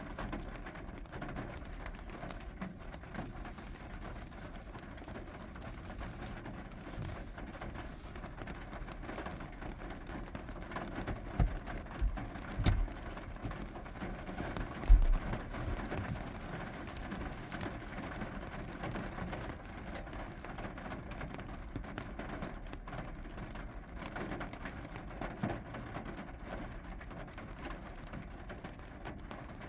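Steady rain falling, with scattered drops ticking. A few low thumps come a little before and around the middle, the loudest about halfway through.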